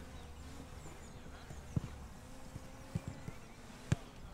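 Footballs being kicked on a grass pitch: a few irregular, sharp thuds of boot on ball, the loudest just before the end.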